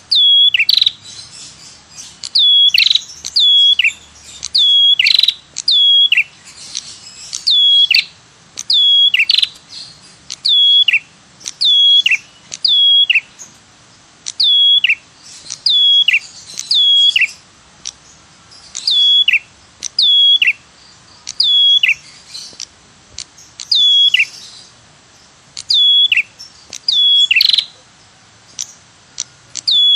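Ashy tailorbird calling over and over, roughly once a second and often in pairs. Each call is a sharp 'tirr', a high note that drops steeply in pitch.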